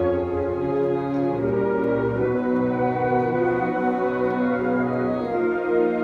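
Wind band playing live, brass and woodwinds holding slow, sustained chords that change every second or so.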